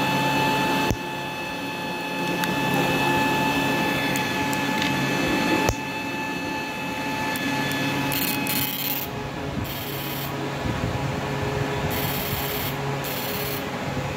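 Serviced electric fishing machine (high-power inverter) running on the bench: a steady high-pitched electrical whine over the hum of its cooling fan, mixed with rubbing and handling noise. There is a click about a second in and another near six seconds, after which the whine fades. Short bursts of hiss come in the second half.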